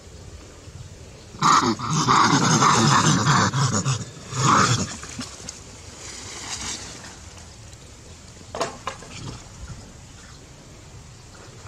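Harsh, loud calls from a macaque: a rough stretch of about two and a half seconds starting about a second and a half in, then one more short call, followed by quieter background with a sharp click near the end.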